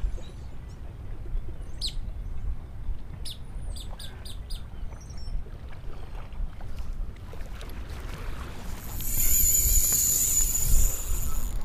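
Wind rumbling on the microphone with a few bird chirps. About nine seconds in, a spinning reel's drag starts whining high and fast as a hard-running fish strips line off the reel, a fish the angler takes for probably a ray.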